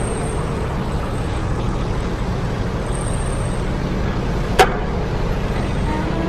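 Steady low rumbling noise, with one sharp glass clink about four and a half seconds in as a glass is set among bottles on a table. Held music notes come in near the end.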